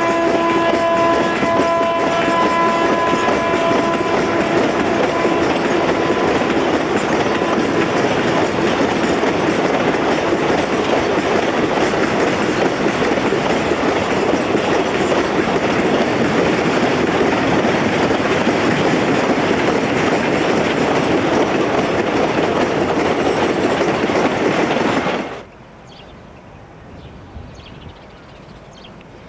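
A train rolling past close by, the steady loud noise of its wheels on the rails, with a held horn tone at the start that fades out within a few seconds. About 25 seconds in the sound cuts off suddenly to a much quieter outdoor background with a few faint ticks, likely footsteps on the track bed.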